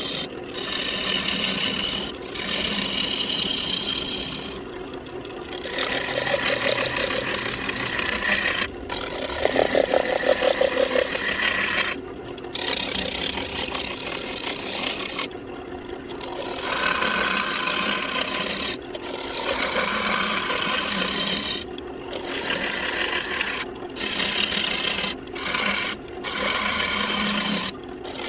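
Walnut on a wood lathe being hollowed with a turning tool, the tool cutting and scraping the spinning wood in passes of a few seconds each with short breaks between them.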